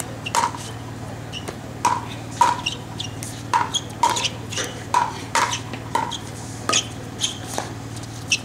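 Pickleball paddles striking a hollow plastic pickleball in a quick exchange at the net, with the ball bouncing on the court: a run of sharp, hollow pops roughly every half second.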